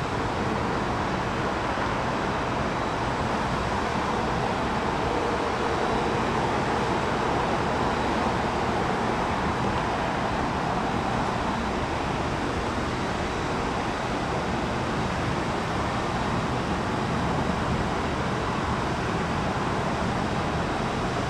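Steady jet aircraft engine noise, holding level with no rise or fall, with a faint high whine above the roar.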